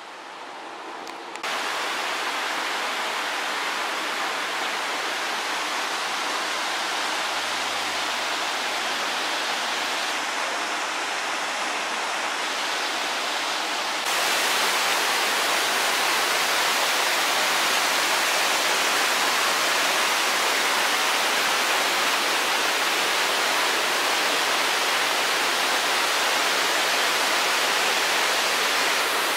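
Steady rushing noise of running water, stepping up abruptly in level about a second and a half in and again about halfway through.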